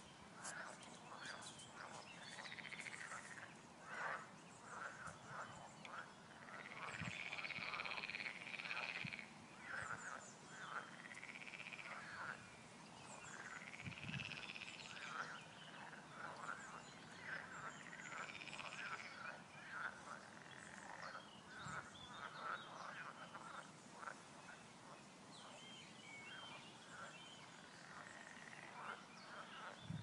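A chorus of frogs croaking: many short, quick croaks overlapping one another, with several longer calls that rise and fall in pitch through the middle stretch.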